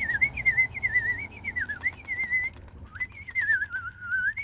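Bird-like whistling: a single warbling tone in two phrases, the second gliding lower than the first.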